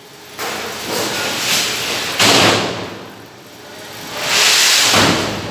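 Large steel plate scraping and sliding as workers handle it at a press brake, heard as a few long hissing, rasping swells. One starts abruptly about two seconds in, and the loudest comes near the end.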